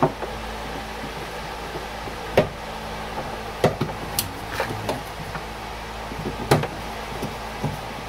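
Scattered sharp clicks and knocks of door-handle and lock parts being handled against the metal shell of a Chevrolet Impala's door, over a steady low hum. The loudest knocks come about two and a half seconds in and again about six and a half seconds in.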